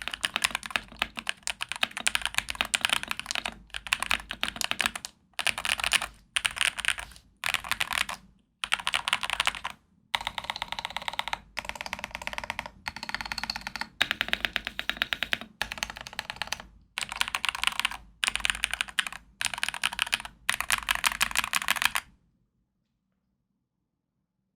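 Womier WK61 61-key mechanical keyboard with L+F Epsilon switches, modded with case foam and a tape mod, typed on fast in bursts of a second or two with short pauses between them. The typing stops shortly before the end.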